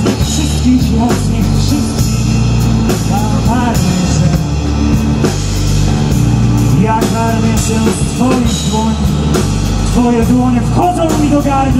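Live rock band playing: a drum kit keeping a steady beat under electric guitar and bass, with a saxophone line weaving over the top.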